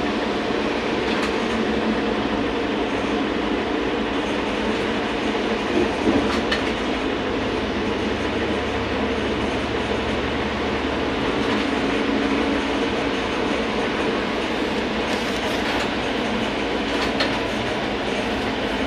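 Inside a VMZ-100 trolleybus on the move: a steady electric hum over rattling road noise, with a couple of knocks about six seconds in.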